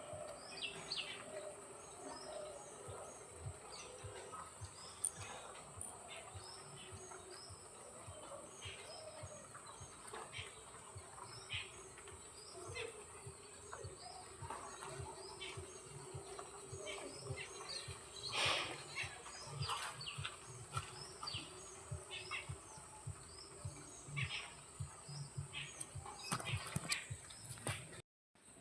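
Faint bird chirps, short and repeated every second or so, over a steady high-pitched whine, with one louder sudden sound about eighteen seconds in.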